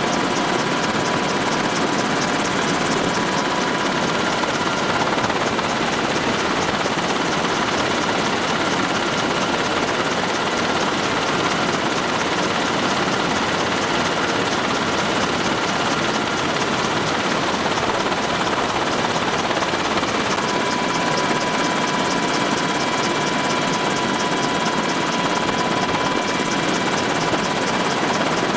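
Military helicopter in flight heard from inside the cabin: a steady dense rush of rotor and engine noise with a few steady high whining tones.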